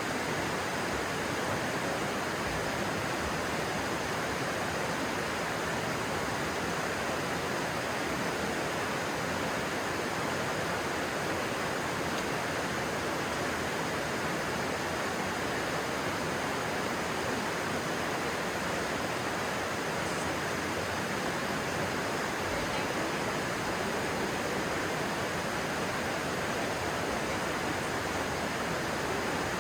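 Steady rushing of flowing stream water, an even hiss with no breaks or separate splashes.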